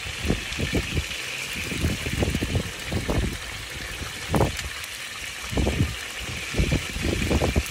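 Chicken wings deep-frying in hot oil in a large aluminum pot, a steady sizzling hiss. Irregular low thuds and rumbles come over it every second or so and are the loudest sounds.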